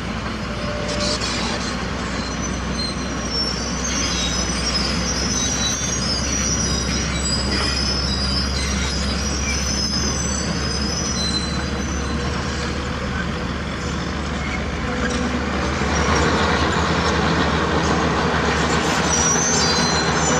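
Tracked heavy earthmoving machinery running with a steady diesel drone and high-pitched metallic squealing that comes and goes, most of it in the first half and again near the end.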